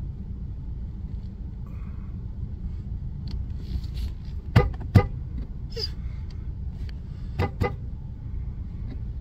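Vehicle moving slowly, heard from inside the cab as a steady low rumble. Two pairs of sharp knocks come about halfway through and again near the end.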